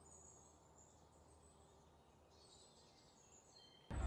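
Near silence with faint, high bird chirps. Steady outdoor background noise comes in suddenly near the end.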